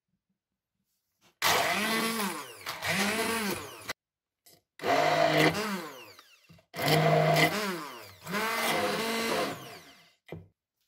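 Electric stick blender run in several short pulses, its motor pitch dipping and rising under load as it grinds a thick paste of soaked, skinned black-eyed peas for acarajé batter.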